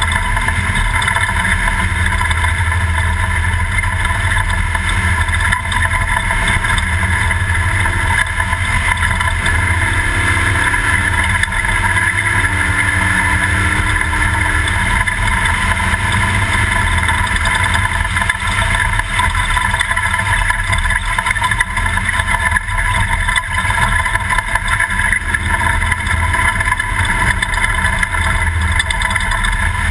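Toyota off-road race truck's engine running steadily, with constant low rumble and mechanical noise from the truck moving over desert terrain.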